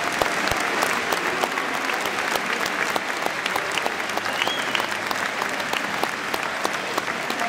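Football crowd applauding in a stadium, with sharp hand claps from fans right next to the microphone standing out over the general clapping of the stand.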